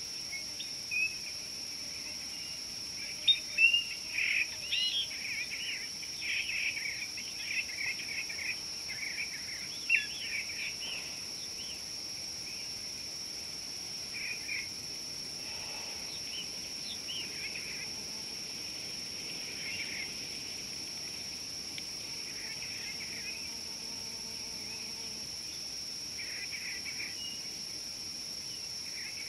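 Birds chirping and calling, busiest in the first ten seconds or so and then only now and then, over a steady high-pitched insect drone.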